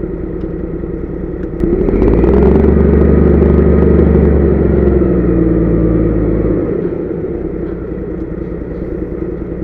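Heavy truck's diesel engine running, heard from inside the cab. About one and a half seconds in it revs up under load and holds for about five seconds, then drops back to its earlier steady running.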